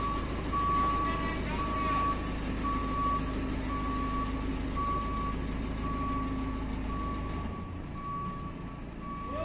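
Forklift's reversing alarm beeping about once a second over its engine running as it backs out with a load; the engine rumble drops away near the end.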